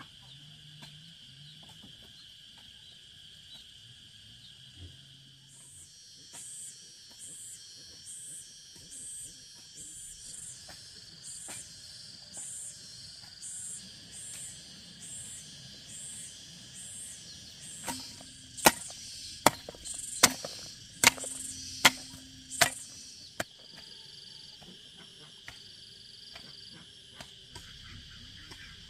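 Steady high insect chirring, with a regular run of high chirps in the middle, then about seven sharp chopping strikes in quick succession.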